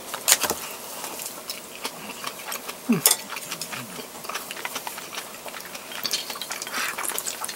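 Eating sounds: sipping miso soup from a bowl and chewing, with small clicks of chopsticks against the bowl. There are two louder sips or slurps, just after the start and about three seconds in.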